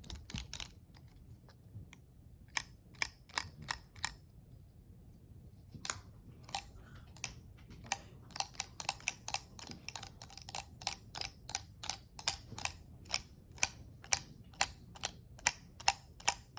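Homemade fidget toy being clicked over and over, giving sharp clicks. There are a few scattered clicks at first, then a short pause, then a steady run of about two to three clicks a second.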